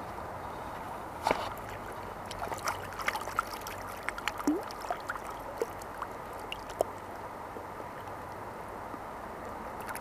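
Steady rush of a shallow river flowing over stones, with a string of small splashes and clicks between about one and seven seconds in as a hand reaches into the water to take a small trout.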